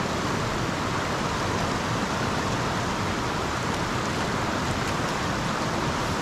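Small rocky stream rushing steadily over stones and riffles.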